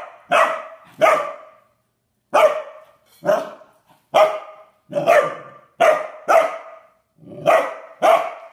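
Standard poodle puppy barking at its water bowl: about eleven short, loud single barks at an uneven pace, some in quick pairs and some with a second's pause between.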